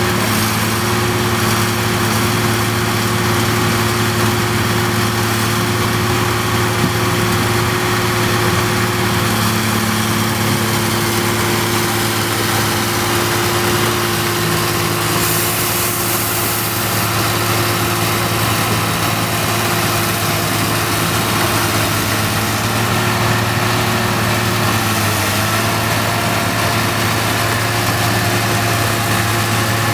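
Rice combine harvester engine running steadily at a constant speed, with a brief hiss about halfway through.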